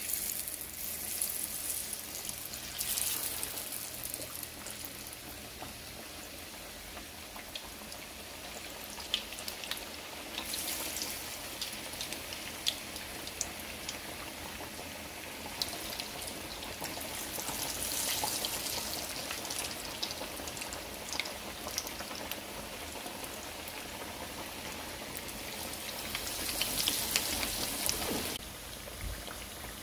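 Beer-battered haddock fillets deep-frying in hot canola oil in a frying pan: a steady sizzle full of small crackles and pops. It starts sharply as the first fillet is lowered in, and swells louder now and then.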